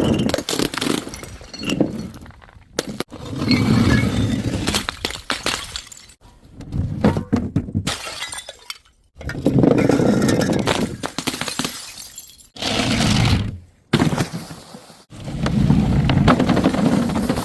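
Glass bottles smashing and shattering, one after another every two to three seconds, each crash followed by tinkling shards of glass.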